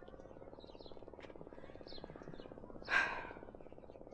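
Small birds chirping in the background: short, high calls scattered throughout, over a faint steady hum, with one louder sound about three seconds in.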